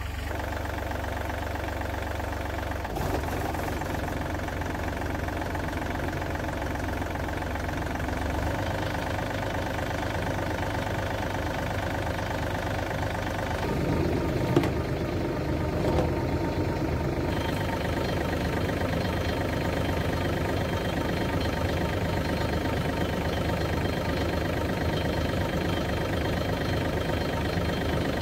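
John Deere tractor engine running steadily at idle with the PTO engaged, driving the sprayer's agitator; its note shifts slightly about three seconds in.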